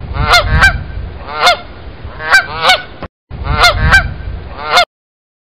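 A goose honking repeatedly: about eight loud honks, several in quick pairs, over a low background rumble.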